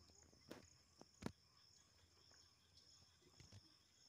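Faint insects chirping in a steady high-pitched pulse, with a few short knocks in the first second or so.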